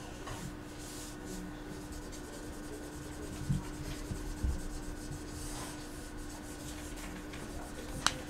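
Felt-tip marker strokes rubbing and scratching on drawing paper over a steady low hum, with two soft thumps a little past the middle and a sharp click near the end.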